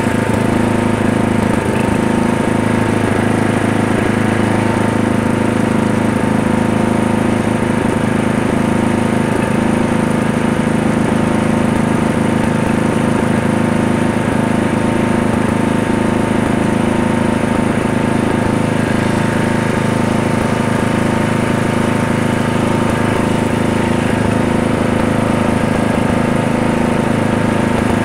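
Murray lawn mower's small engine running steadily at one constant speed while bagging leaves.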